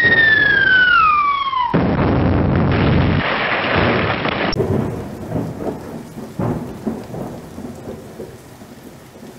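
Explosion sound effect laid over the footage. A descending whistle, like a falling bomb's, cuts off into a blast about two seconds in. A long rumble follows and slowly fades away, with scattered cracks and thumps.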